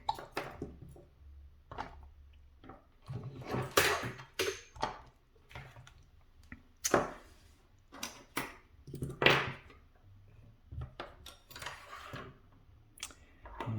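Scattered metal knocks, clicks and scrapes from working a stuck bench vise loose, with the louder knocks about 4, 7 and 9 seconds in.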